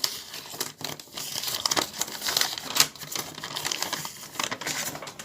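A sheet of paper rustling and crinkling as it is handled, with many small irregular crackles.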